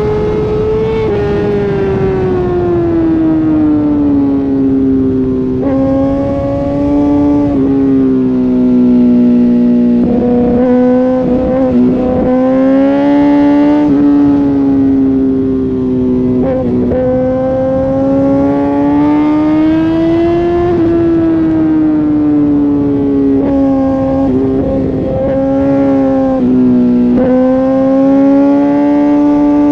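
Inline-four sportbike engine running hard at high, near-steady revs. Its pitch drifts slowly up and down, with a few brief breaks and jumps, over rushing wind noise.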